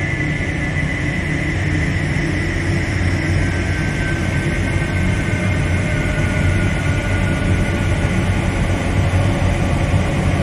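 Dark ambient drone music: a dense, steady low rumbling drone with a thin high tone above it that slowly sinks in pitch.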